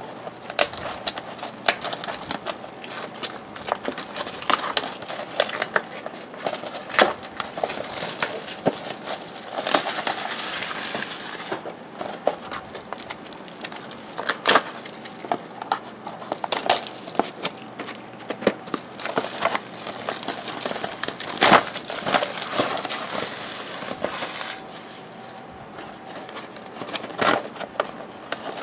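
Trading card boxes and packs being torn open and handled: irregular crinkling and crumpling of wrappers and cardboard with many sharp clicks and crackles, denser about ten seconds in.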